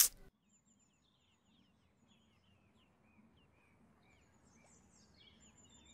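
Faint birds chirping, many short calls that sweep down in pitch, over quiet outdoor background noise. A brief loud burst at the very start.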